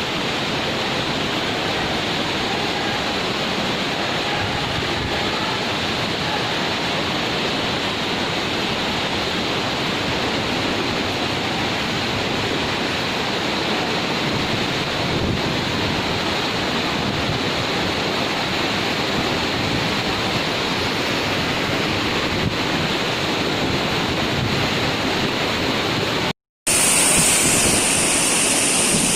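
Waterfall water rushing in a steady, even roar. Near the end it cuts out for a moment and gives way to a louder, hissier rush.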